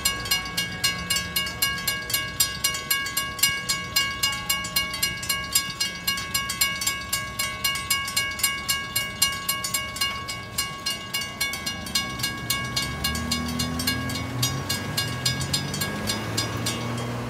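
Railroad crossing warning bell ringing in an even, fast rhythm of about three strokes a second, with the gates down after the train has passed. It stops near the end as the gates go up. In the last few seconds, car engines speed up as traffic starts across.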